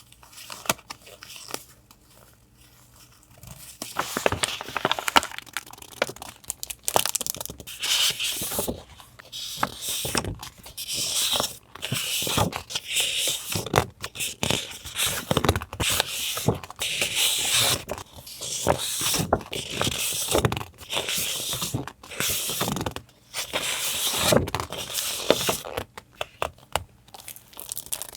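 Paper handled close to the microphone: irregular rustling, crinkling and tearing strokes. A few light taps in the first few seconds, then continuous handling from about four seconds in.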